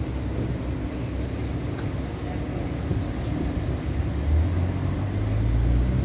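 Street traffic: a steady low rumble of vehicles, with one engine growing louder and rising in pitch from about four seconds in as it accelerates past.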